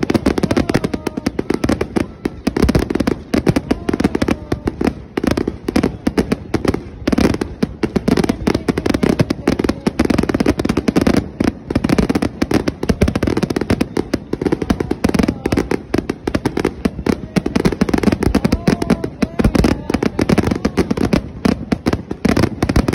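Fireworks finale: a dense, unbroken barrage of aerial shell bursts and crackle, many bangs a second, loud throughout.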